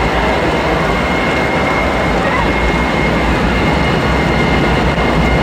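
Steady, loud wash of noise filling an indoor waterpark hall: rushing and splashing water from the play structures and pools, echoing under the high roof. A faint steady high tone runs underneath.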